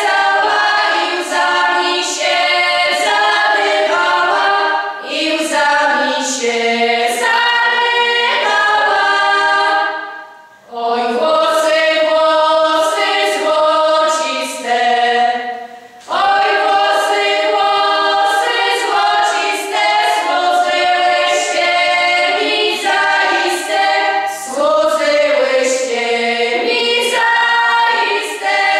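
A women's folk singing group of six voices singing a Polish folk song unaccompanied, in long sung phrases with short pauses for breath about ten and sixteen seconds in.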